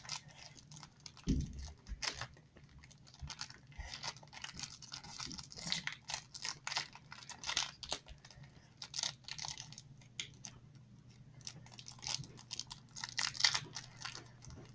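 Plastic toy packaging being crinkled and torn at in short, irregular crackles as it resists opening, with a low thump about a second in.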